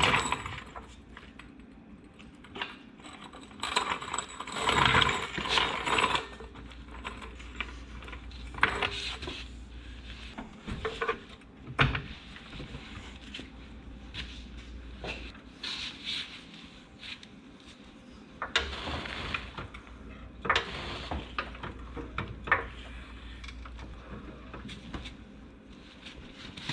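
Car jack being worked to raise the vehicle: irregular metallic clicks, ratcheting and clanks, with some handling noise.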